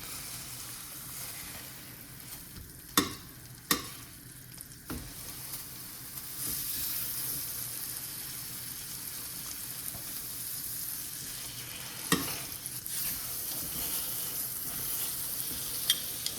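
American Wagyu steak searing in a hot pan with butter and garlic, sizzling steadily; the sizzle grows louder about six seconds in. A few sharp clicks, from the pan or utensils, stand out over it.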